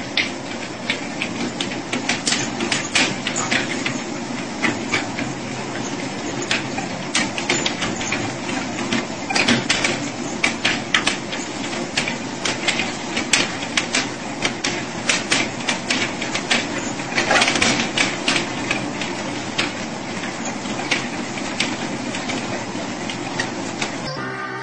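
Motorised treadmill running with a steady hum and many irregular clicks and taps as a dog and a cat walk on the moving belt.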